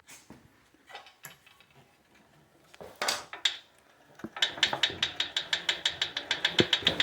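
ProForm Power C7L exercise bike ticking as it runs: a few loose clicks and a knock, then from about four seconds in a fast, even ticking of roughly six ticks a second. This is a ticking fault that the owner finds getting louder and more frequent, alongside a wobbling wheel, with no loose bolts or visible rubbing.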